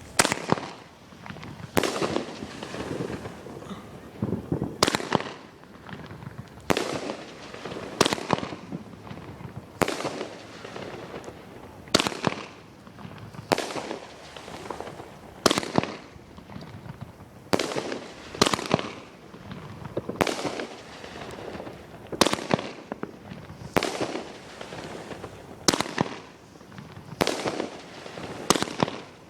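Fireworks going off in a steady string: a sharp bang every one to two seconds, each one trailing off before the next.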